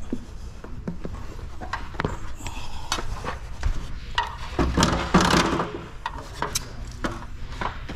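Clanks and knocks of a fibreglass step ladder with aluminium steps being handled and climbed, with a denser clatter about five seconds in.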